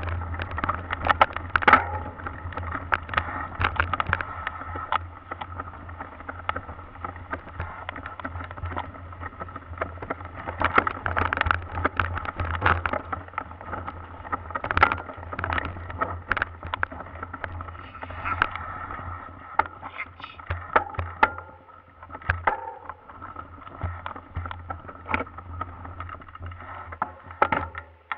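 Mountain bike rattling and knocking over wet stone paths and cobbles, picked up through a handlebar-mounted camera: a steady rumble and hum with frequent sharp knocks from the bumps, which grow sparser toward the end as the bike slows to a stop.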